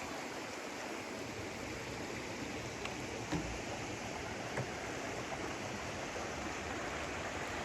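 Steady rush of flowing water from a stream or waterfall, with a few faint knocks about three and four and a half seconds in.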